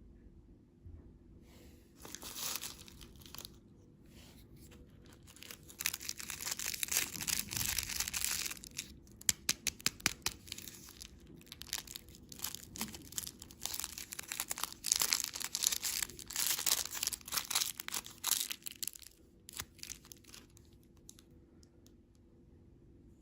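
Candy packaging being torn open and crinkled by hand: bursts of tearing and rustling with many sharp crackles, dying away near the end.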